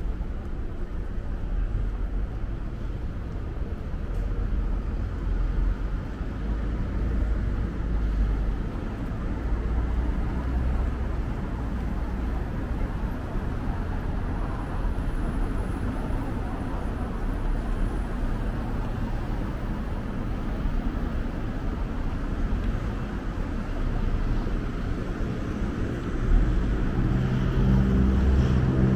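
Steady city street traffic noise, a low rumble of passing cars. Near the end a low pitched drone comes in over it.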